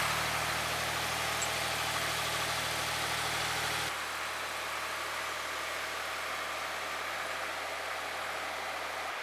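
A 50-horsepower two-wheel-drive diesel tractor engine running steadily under load as it skids a log through snow, growing quieter about four seconds in as it moves away.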